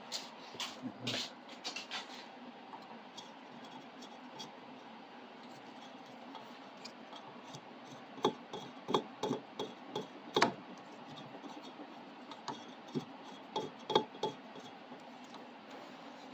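Scattered light clicks, taps and clinks of hand tools and small metal parts being handled. They come in clusters in the second half, with the loudest knock about ten and a half seconds in.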